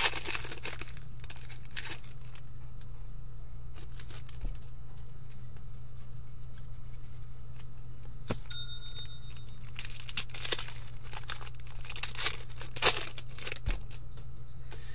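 Foil hockey card pack wrappers being torn open and crinkled as cards are handled, in rustling bursts at the start and again in the last few seconds, over a low steady hum. A short electronic beep sounds about eight seconds in.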